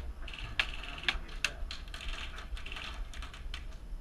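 Airsoft gunfire: repeated short bursts and sharp single clicks of airsoft guns being fired.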